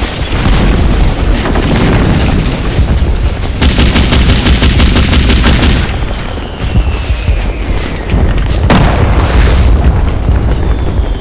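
Heavy low rumble of wind buffeting the microphone. About three and a half seconds in, an airsoft gun fires a rapid burst of shots lasting about two seconds.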